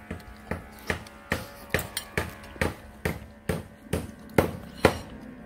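A metal fork knocking against a ceramic bowl about a dozen times, a little over two knocks a second, as it cuts through the food.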